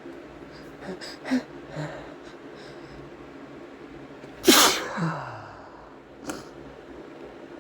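A man sneezes once, loudly, set off by chhinkni, a sneeze-inducing herbal snuff. A few short gasping in-breaths build up to it, the voiced tail of the sneeze falls away in pitch, and a quick sniff follows.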